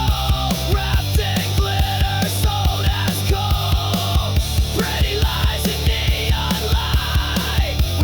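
Loud grunge-style rock music: distorted guitars and bass over a steady, driving drum beat, with no singing picked up.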